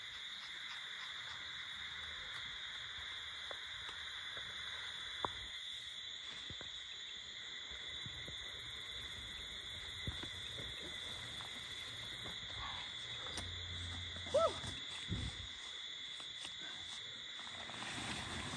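Steady high-pitched chorus of insects calling, with a few sharp clicks and light rustles from the pop-up hub tent's frame and fabric being handled, and a short rising-then-falling call a little past halfway.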